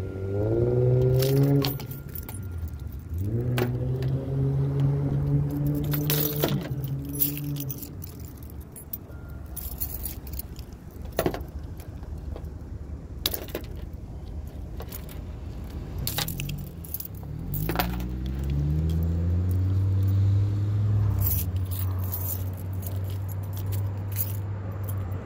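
Keys jangling and clicking against the wiper arm as a small key is used to work loose a stiff wiper-blade clip. A vehicle engine hums in stretches underneath, sliding in pitch near the start and again about two-thirds of the way through.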